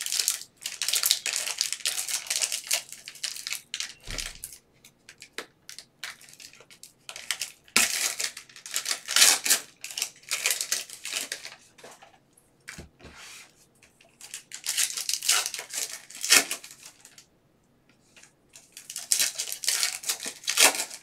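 Plastic wrappers of 2018-19 Panini Prizm basketball cello packs being torn open and crinkled by hand, in several bursts of crackly rustling with short pauses between.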